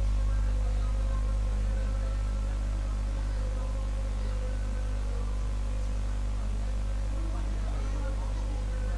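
Steady low electrical hum with several overtones, unchanging throughout: mains hum picked up by the recording setup.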